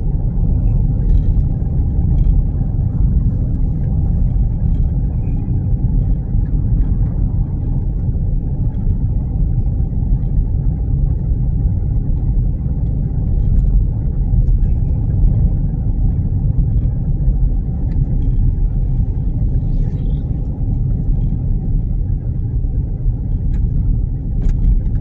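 Steady low rumble of a car driving, heard from inside the moving vehicle.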